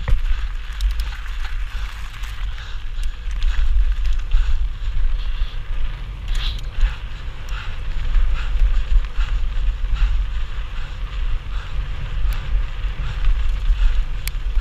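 Mountain bike descending fast, its tyres rolling over gravel and then a rough dirt track, with the frame and drivetrain rattling in many small clicks. Heavy wind noise on the microphone runs underneath.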